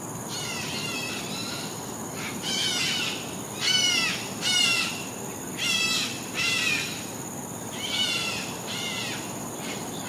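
White-crested laughingthrush giving harsh calls in a run of short chattering bursts, each made of quick downward-sliding notes. The loudest bursts come near the middle.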